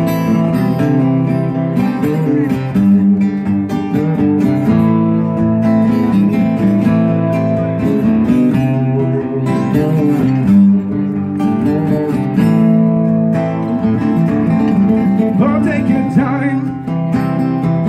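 Two acoustic guitars played live through a PA speaker, strumming chords in a steady, continuous instrumental passage.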